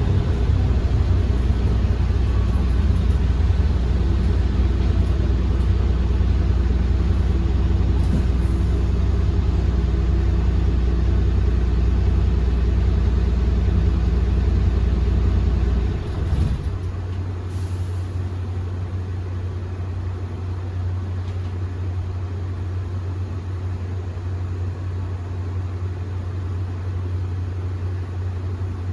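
Iveco Urbanway 18 Hybrid articulated bus running with a loud, steady low drone. About halfway through, the drone drops away and a quieter steady low hum carries on.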